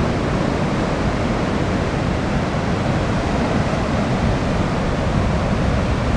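Ocean surf breaking and washing up over the sand: a steady rush of waves and foam with no separate crashes standing out.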